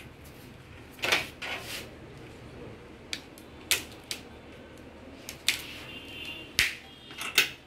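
Irregular sharp clicks and light knocks, about eight of them, from small hard parts and tools being handled during repair work on an LED TV's backlight.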